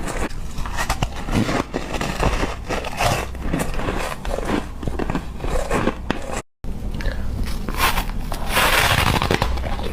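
Ice being bitten and chewed close to the microphone: a dense run of irregular crunches and crackles, cut off by a split second of silence about two-thirds of the way through, then louder crunching near the end.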